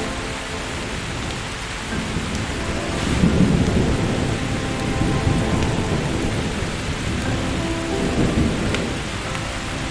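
Steady rain falling, with a long roll of thunder that builds about two seconds in, is loudest around three to four seconds, and rumbles on with another swell before fading near the end.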